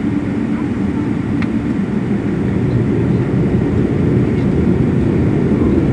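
Boeing 777-300ER's GE90 jet engines and rolling airframe heard from inside the passenger cabin as the airliner taxis: a steady low rumble that grows slightly louder toward the end.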